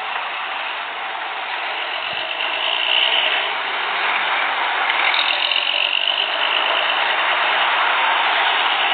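Diesel engines of old Romanian buses of the Roman Diesel 111 and Rocar 111 kind, running as the buses manoeuvre across the yard. The sound gets louder about three seconds in as a bus comes close and stays up.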